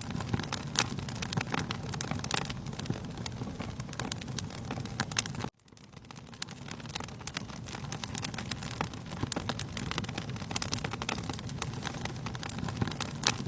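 Wood fire crackling and popping steadily in a fireplace. About halfway through the sound cuts out abruptly and fades back in within a second or so.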